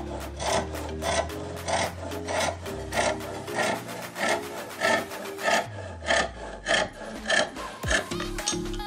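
Thin-bladed hand frame saw cutting through a small block of wood, in even rasping strokes about two a second that stop near the end, over background music.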